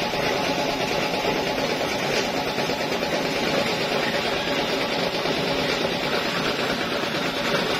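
Workshop machinery running steadily, a constant mechanical hum and hiss.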